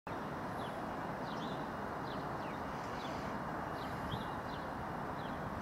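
Small birds chirping in short high calls, about two a second, over a steady low rumble.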